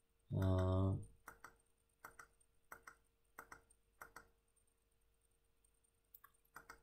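Computer mouse button clicking in quick press-and-release pairs, a pair about every two-thirds of a second, stopping for about two seconds and then returning near the end. Just before the clicks, a short steady hum of a voice, like a held 'mmm', is the loudest sound.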